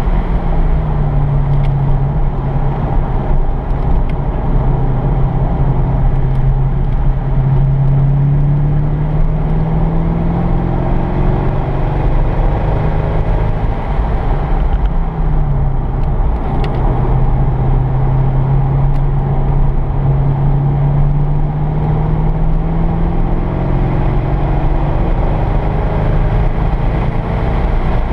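Chevrolet Corvette C5 Z06's LS6 V8 heard from inside the cabin on track, pulling steadily under throttle with its note slowly rising. It eases off around the middle and then pulls and rises again, over constant tyre and wind noise.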